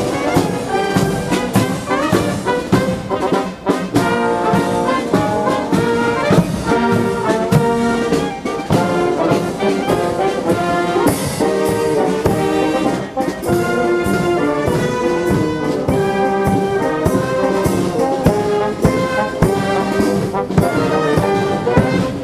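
Police and fire brigade brass bands playing: trumpets, trombones, tubas and clarinets over a steady beat.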